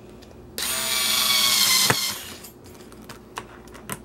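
Cordless drill-driver running for about a second and a half, driving a screw into a leather saddle's hardware, with a sharp click near the end of the run. A few faint clicks follow.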